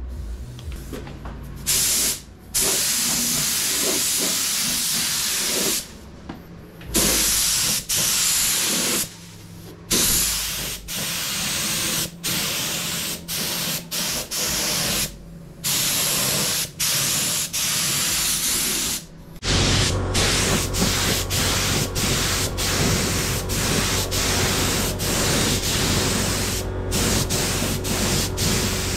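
Gravity-feed paint spray gun hissing as it lays 2K direct gloss onto a car body, in runs of spraying broken by short stops each time the trigger is let go between passes. The stops come more often later on, and a steady low hum starts about two-thirds of the way through.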